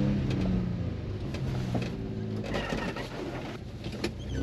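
Suzuki Carry kei truck's 660cc engine heard from inside the cab, easing off from a rev and then running low as the truck crawls a rough, muddy trail. Scattered knocks, clicks and a few short squeaks come from the body and suspension.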